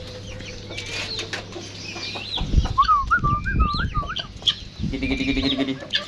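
Chickens clucking as they come out of the coop, with a pulsed, rapidly repeated cluck near the end. Small birds chirp throughout, and there is a burst of wing flapping and thumps about halfway through.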